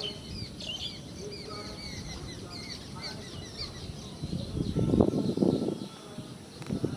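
Small birds chirping over and over, many short quick high calls. About five seconds in, a louder, rougher burst of lower sound lasting about a second covers them.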